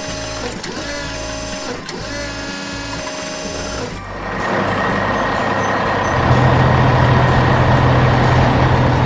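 Cartoon construction-vehicle sound effects: for about four seconds a pitched mechanical whine that wavers up and down in pitch, then a steady engine hum with a hiss that grows louder about six seconds in.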